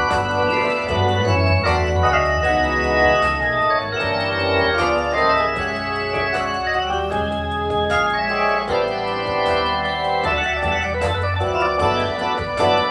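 Hammond-style combo organ playing chords, with sustained low bass notes from MIDI bass pedals underneath that change every second or two.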